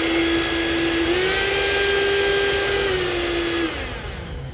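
Multilaser portable mini blender's base motor running on its own, without the blade cup: a steady whine that steps up in pitch about a second in and winds down near the end. It runs without the loud noise, so the fault is not in the base but in the blade assembly, whose bushing has worn metal-on-metal.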